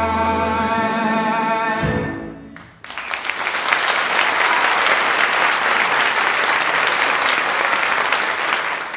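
A male voice holds the song's final note over a sustained musical accompaniment, fading out about two seconds in. About three seconds in, audience applause starts and keeps going.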